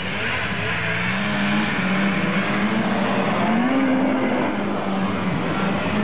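Snowmobile engine running at a steady high pitch, its note rising briefly about three and a half seconds in and then settling back.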